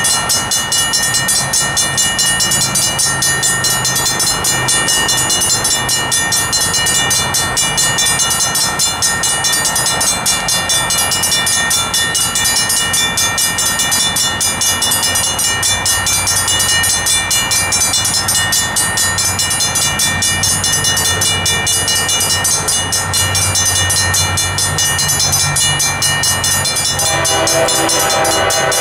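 Railroad crossing bells ringing steadily and fast, with the gates down. A low train rumble builds through the second half, and a locomotive's K5LA air horn chord starts to sound near the end.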